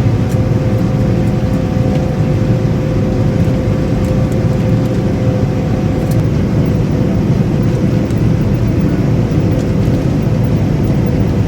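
Combine harvester running steadily, heard from inside the cab: a dense, even drone of engine and machinery. A thin steady hum rides on top and fades about six seconds in.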